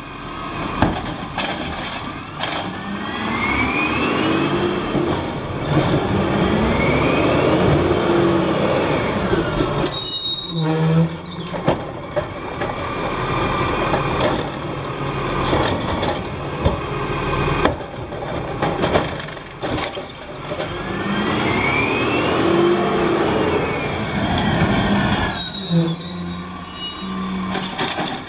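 Autocar ACX automated side-loader garbage truck working its route: the engine revs up and falls back as the hydraulic arm lifts and dumps carts, with a loud air-brake hiss twice, about ten seconds in and near the end.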